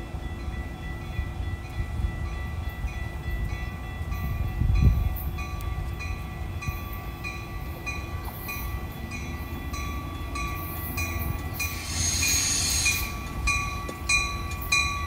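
Railroad crossing warning bells ringing steadily, about two strikes a second, with the low rumble of a Metra commuter train approaching. A brief hiss comes about twelve seconds in.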